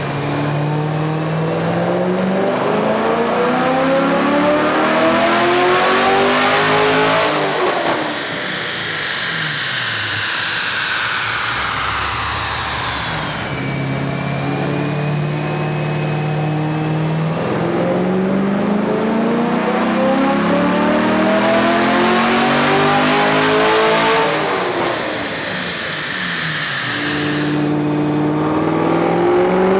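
The cammed 7.0 L LS7 V8 of a Chevrolet Camaro Z28, with heads, cam, stock intake and cats, making wide-open-throttle dyno pulls. The revs climb steadily for about seven seconds, then the engine coasts down with a high whine falling along with it. A second pull follows halfway through, and a third begins near the end.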